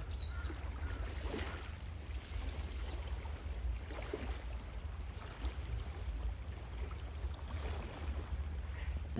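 Outdoor water and wind ambience with a steady low rumble and a few faint, short high chirps.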